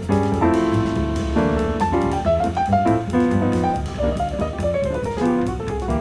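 Jazz piano playing chords and melodic runs over upright double bass and drum kit with cymbals, in a straight-ahead bebop style.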